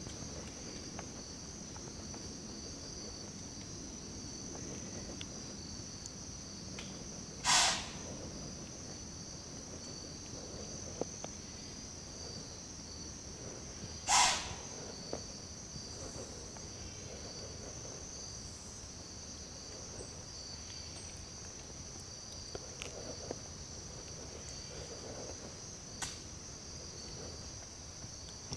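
Steady high-pitched chorus of insects, likely crickets, droning on two close pitches. Twice, about six and a half seconds apart, a short hissing burst cuts over it, the loudest sounds here.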